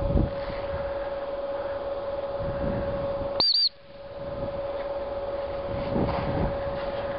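A dog training whistle blown twice in quick succession about halfway through, two short high peeps: the double-blast recall signal that calls the dog in for "meal-time". A steady hum runs underneath.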